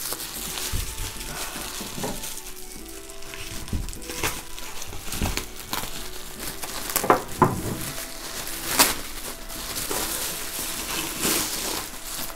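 Plastic bubble wrap crinkling and crackling irregularly as it is cut open and pulled off a packed object, with a few sharper, louder crackles about seven to nine seconds in. Soft background music plays throughout.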